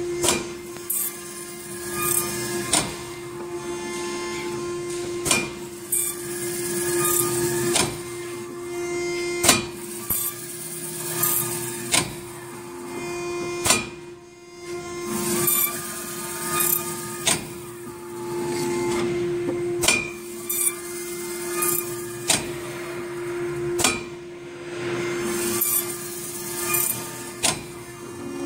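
A BWZ-B1 CNC channel letter bending machine running its automatic cycle on aluminium strip. A steady motor hum runs under sharp clicks and short hissing bursts that come every second or two as the strip is fed, notched and bent.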